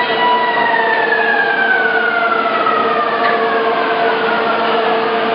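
Wagon tippler machinery: a high whine, steady at first, slides slowly down in pitch from about a second in, over a steady lower hum and a noisy industrial background.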